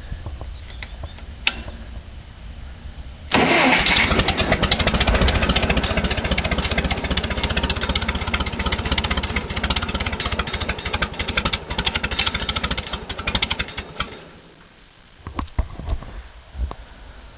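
Case 430 tractor engine cranked over by its starter for about ten seconds on a choked cold start, turning fast and even without catching, then winding down. The fuel was turned off, so it cannot fire.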